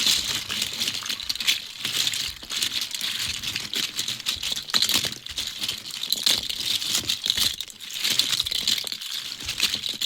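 Crinkling and rustling of plastic packaging being handled, dense with small clicks and crackles.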